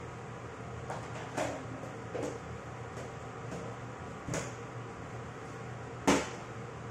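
Knocks and clatter of kitchen work: about five sharp knocks spread over several seconds, the loudest about six seconds in, over a steady low hum.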